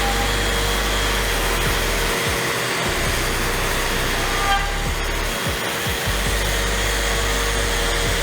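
Festool RO 150 random orbital sander running steadily on a wooden sign, a constant motor hum under the hiss of sanding.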